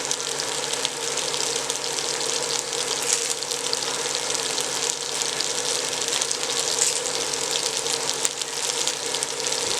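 Curry paste with lemongrass, galangal and kaffir lime leaves frying in hot oil in a pan: a steady sizzle with fine crackling.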